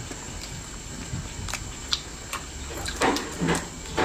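Scattered light clicks and rustling of hands handling cooked spicy lobsters, busier about three seconds in.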